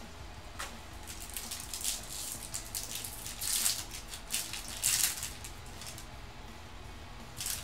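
A foil trading-card pack torn open and its wrapper crinkled by hand: a run of crisp crackling and tearing, loudest about three and a half and five seconds in.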